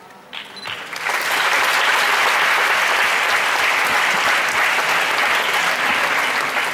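Audience applauding: a few separate claps about half a second in, swelling within a second into full, steady applause.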